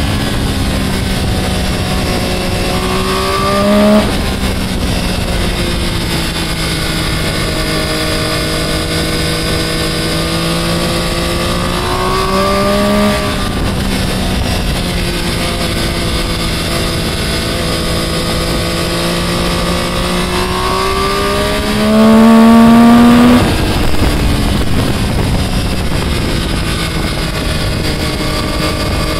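Sport motorcycle engine under way, its note slowly climbing and then dropping sharply three times, about 4, 13 and 23 seconds in, loudest just before the last drop. Wind rushes over the bike-mounted microphone throughout.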